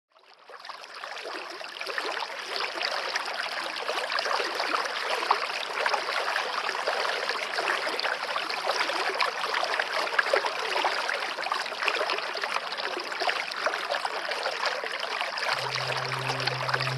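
Water flowing and splashing steadily, fading in over the first couple of seconds. Near the end a low steady tone comes in under it.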